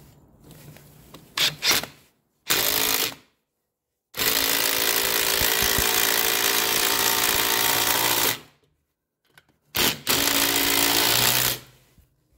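Cordless impact driver driving a screw through a metal bracket into a wooden door jamb, hammering in three runs: a short burst, a long one of about four seconds, then one of about two seconds. A few light clicks come first.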